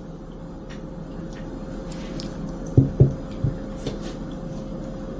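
A few light clicks and taps of small metal earrings being handled and set down, over a steady faint background hum.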